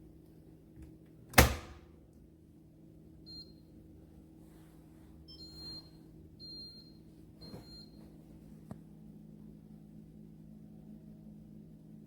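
A sharp thump, then about four short electronic beeps from the Instant Solo single-serve coffee maker's control buttons, after which a low steady hum sets in.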